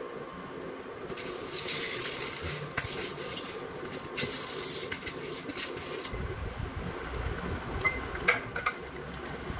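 Dried mung beans poured from a plastic bowl into a pot of boiling water: a dry, rattling hiss that lasts about five seconds. Near the end a ladle clinks a few times against the pot.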